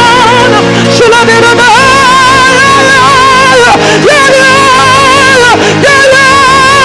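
Live gospel worship music: a wordless melodic line of long held notes with strong vibrato, each sliding up into its pitch, over a steady sustained backing.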